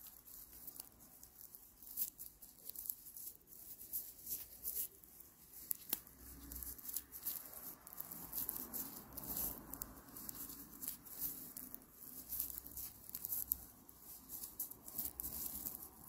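Raffia yarn crinkling and scratching against a crochet hook in quick, irregular little rasps as it is wrapped and pulled through double crochet stitches, with a few soft handling bumps.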